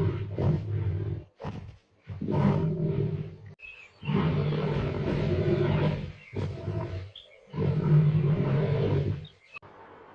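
Black panther growling in a series of long, deep calls with short breaks between them.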